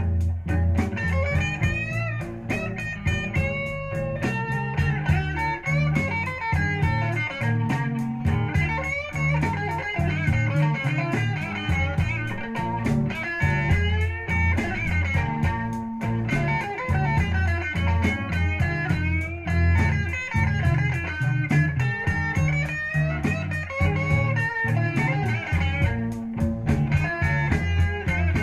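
Music with electric guitar, bass and a steady beat, played from a vinyl LP through Design Acoustics PS-8c speakers driven by a Sansui AU-555 amplifier, heard in the room.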